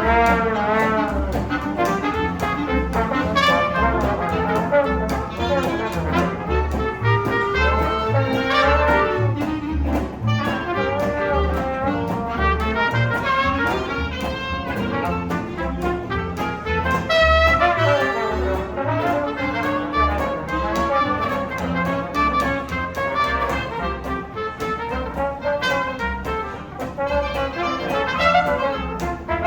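A live New Orleans jazz band playing an instrumental passage: a trumpet and other brass carry wavering melodic lines over a steady, even bass pulse and drums.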